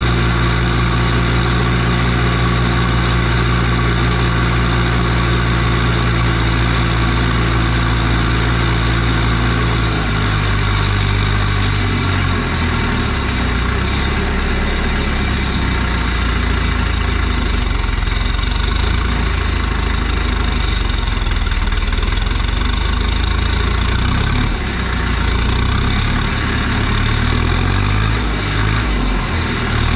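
Ursus 1014 tractor's turbocharged four-cylinder diesel engine (Martin Z 8002.12) running. The note is steady at first, shifts about ten seconds in, then wavers, rising and falling near the end.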